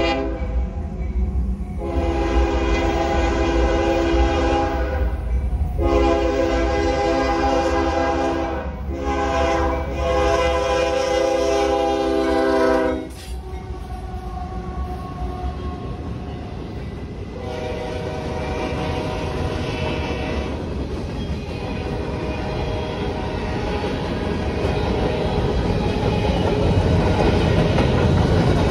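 A CSX freight train's GE diesel locomotives (ES40DC and ES44AH) sound the air horn in several blasts for the grade crossing, the last one held until the horn cuts off about halfway through as the locomotives reach the crossing. The locomotives then pass, followed by freight cars rumbling by with wheels clacking over the rail joints, growing louder near the end.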